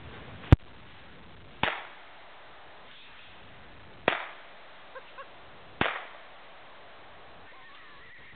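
Four gunshots at uneven intervals, each a sharp crack with a short echo trailing off through the trees; the first, about half a second in, is the loudest.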